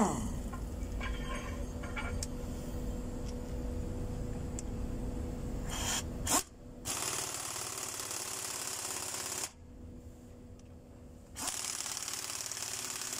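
An air impact wrench runs on a fastener in the top of a Mercedes-Benz Actros diesel engine's cylinder head, in two bursts of about three seconds each. The first burst starts a little past halfway through, and there is a short pause between them. Before that there is only a steady low hum.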